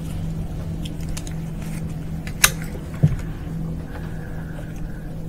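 Steady low hum, broken by a sharp click about two and a half seconds in and a dull knock half a second later: a glass slide being changed on the microscope stage.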